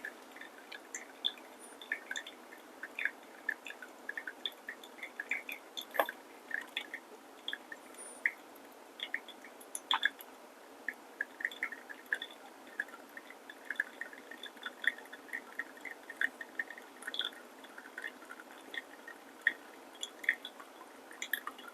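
Pour-over coffee brewing: a faint trickle of liquid with many small, irregular drips, and a couple of light clicks.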